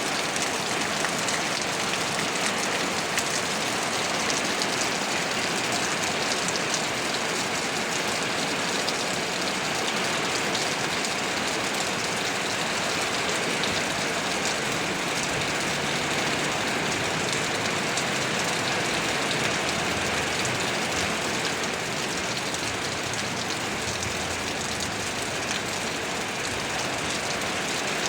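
Steady rain falling: an even hiss of many small drop ticks that holds constant throughout.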